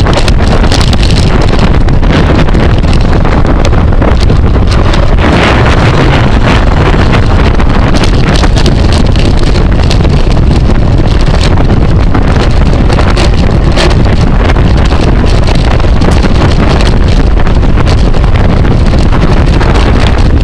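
Heavy wind buffeting the microphone of a camera riding along on a bicycle at race speed, loud and steady, with frequent small clicks and rattles.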